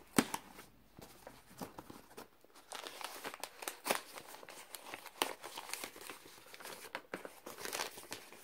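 Gift-wrapping paper being torn open and crinkled by hand: a run of irregular crackles and small rips.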